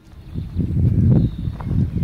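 Wind buffeting the microphone: a loud, uneven low rumble that starts about half a second in.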